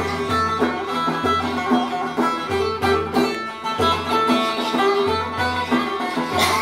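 Bağlama (Turkish long-necked saz) played live: a plucked folk melody with quickly changing notes over a low pulse that recurs about once a second.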